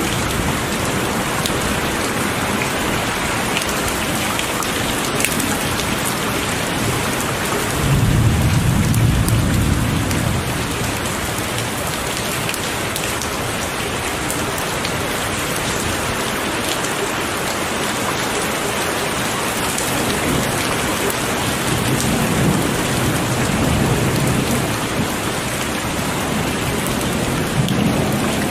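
Heavy rain falling steadily on surfaces, a dense even hiss, with low rolls of thunder rumbling about a third of the way in and again near the end.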